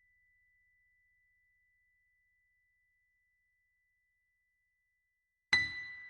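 A small high-pitched bell struck once about five and a half seconds in, ringing with a clear, steady high tone and overtones that slowly die away. Before the strike, the faint tail of the previous strike fades almost to silence.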